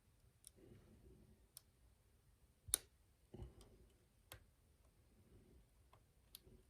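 Faint, irregular clicks of a lock pick and tension wrench working the pins of a challenge lock being picked, one louder click near the middle.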